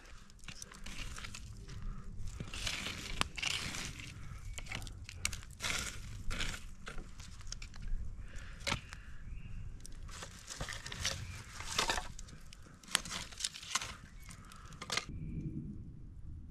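Dry sticks and wood snapping, cracking and rustling as logs are broken up and fed onto a campfire; irregular sharp cracks and crinkling that stop near the end.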